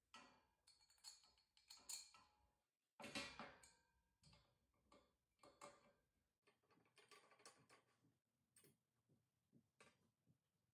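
Faint, irregular light clicks and scrapes of metal shoe-rack parts being handled: the legs fitted against the wire shelf and screws turned in with an Allen wrench. The loudest clatter comes about three seconds in.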